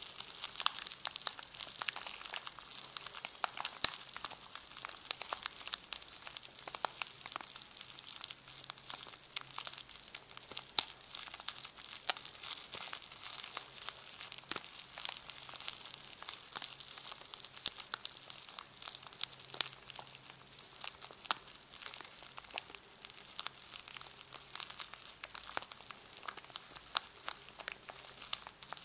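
A brush in its packaging being handled, the wrapper rustling and crackling in a dense, unbroken run of small sharp crackles.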